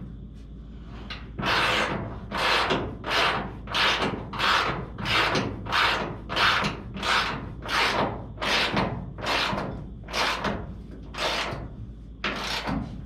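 Hand ratchet wrench running a fender bolt in: about sixteen rasping ratchet strokes in a steady rhythm, roughly one and a half a second, starting after a second or so.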